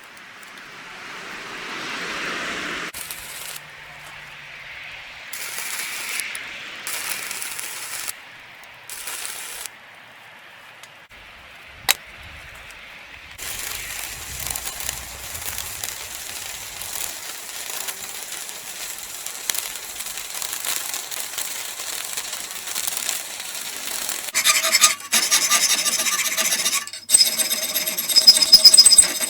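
Shop metalworking sounds in short, abruptly cut passages: abrasive grinding, sanding and rubbing on steel, with one sharp click. Near the end a power tool's motor runs with a steady whine.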